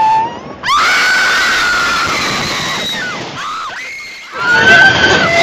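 A girl screaming on a roller coaster ride: one long high scream starts about a second in and fades away, and another scream rises near the end. A rush of wind noise runs under the screams.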